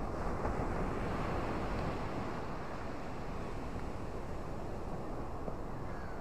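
Ocean surf breaking over rocks and washing up a sand beach: a steady rush that swells slightly in the first two seconds, with wind rumbling on the microphone.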